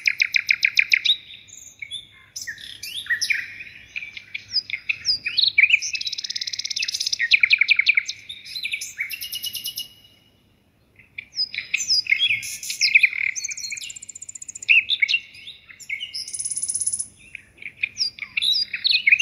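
A small songbird singing in long runs of rapid trills and chirps, breaking off for about a second near the middle.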